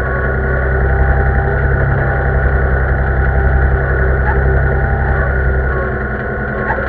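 Vintage tractor engine running steadily at low revs, heard from the driver's seat, with a slight swell about a second in.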